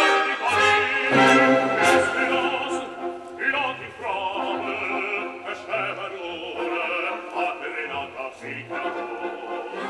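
Operatic singing, a held voice with vibrato, over classical instrumental accompaniment.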